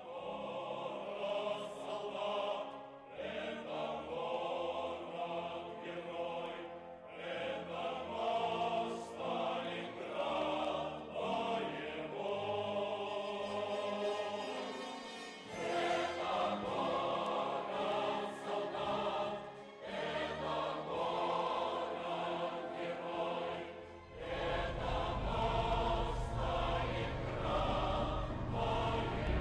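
Choral music: a choir singing in long phrases with short breaks between them. Near the end a low rumble joins under the singing.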